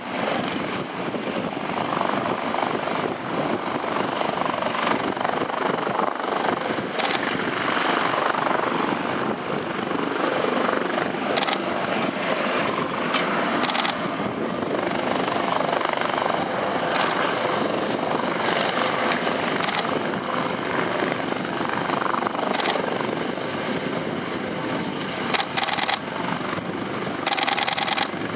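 US Coast Guard MH-65 Dolphin helicopter running steadily, its twin turboshaft engines and rotors making a dense continuous noise, with several short sharp clicks scattered through.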